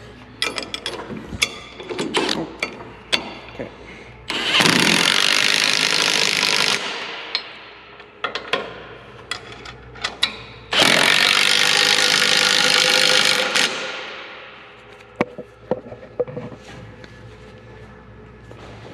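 Cordless impact wrench hammering nylon lock nuts tight on bolts, in two runs of about two and a half and three seconds, each tailing off as it stops. Metal clicks and knocks of the socket and parts being handled come between the runs.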